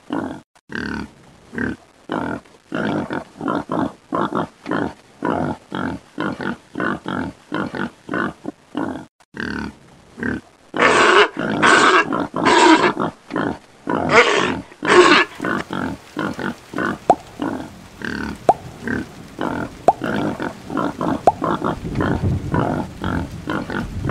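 Pigs grunting in a steady run of short grunts, about two a second. In the middle, five or six louder, longer calls break through before the grunting goes on.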